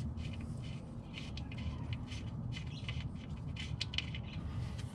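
Scattered light scrapes and clicks of hand cleaning work on the transaxle around its fill plug, over a low steady hum.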